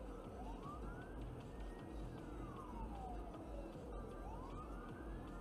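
Emergency vehicle siren wailing, its pitch sliding slowly up and falling back down, one full rise and fall about every three and a half seconds, over a low rumble of traffic.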